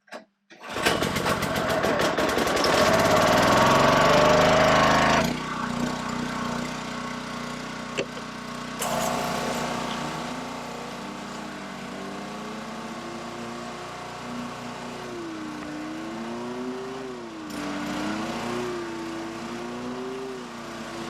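Gas pressure washer engine starting, its pitch climbing over the first few seconds, then dropping back about five seconds in and running steadily, with its pitch wavering up and down in the later part.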